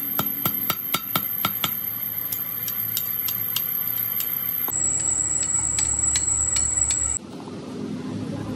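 Spanner working the bolts on a truck drive shaft's universal cross joint bearing cap: quick metallic clicks, about four a second at first, then sparser, over a steady high thin whine.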